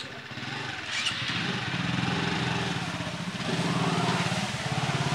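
Small single-cylinder engines of a Hero Splendor motorcycle and a Hero Maestro scooter running under load as they are ridden over a heap of paddy straw, threshing the grain with their wheels. The engine note revs up about a second in, eases briefly past the middle, then rises again with a pulsing beat.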